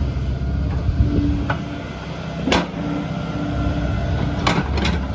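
Volvo EC140EL crawler excavator's diesel engine running steadily, with a few sharp knocks from the machine: one about halfway through and a quick cluster near the end.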